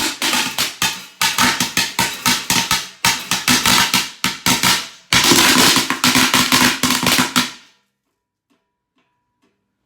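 Fireworks going off inside a lidded cooking pot: a rapid, loud run of bangs and crackles, several a second. It cuts off abruptly about three-quarters of the way in.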